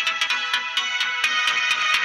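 Electronic-style music played through a home-built TDA7384 car-audio amplifier into a pair of small oval speakers, with a fast beat and little bass.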